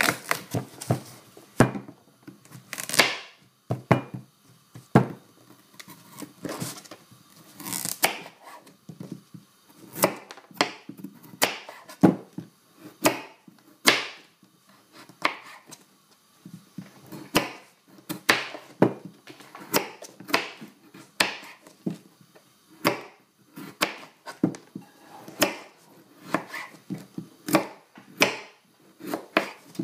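Large kitchen knife slicing the skin off a butternut squash, each cut ending in a sharp knock of the blade on a plastic chopping board, in irregular strokes about one every second or so.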